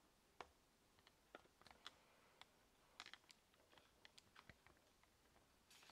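Near silence: room tone with a dozen or so faint, scattered short clicks.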